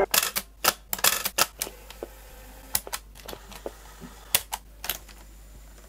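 Piano-key control buttons of a Siemens Trabant RC 601 portable cassette recorder being pressed and released: a string of sharp mechanical clicks, crowded together in the first second and a half, then a few more spaced out.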